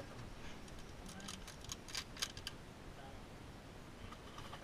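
A few light clicks and small rattles from hands handling small gear, clustered between about one and two and a half seconds in, over a quiet steady background.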